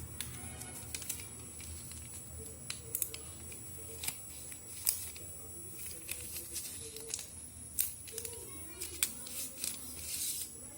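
Irregular small clicks and taps with light plastic rustling as a new smartphone is handled and taken out of its packaging, with a longer rustle near the end.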